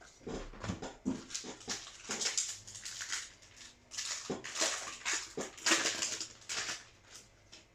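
Crinkling and rustling of a foil trading-card booster pack being torn open and its cards handled, in a quick run of short, irregular bursts.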